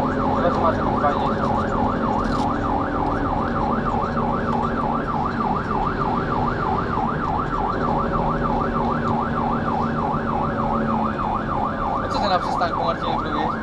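Fire engine's electronic siren sweeping rapidly up and down, about three to four sweeps a second, heard from inside the cab of a Mercedes Atego over the steady drone of its diesel engine.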